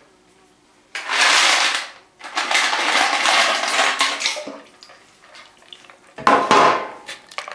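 Ice cubes and water clattering and sloshing in a plastic bucket, in three bursts of about a second or two each.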